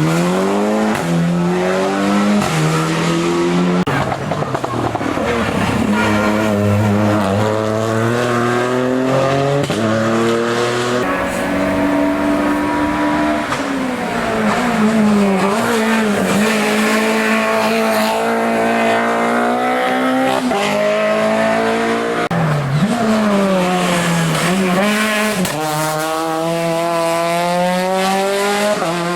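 Hill-climb race car engine at high revs, the pitch climbing in steps through gear changes and dropping back sharply a few times on braking and downshifts.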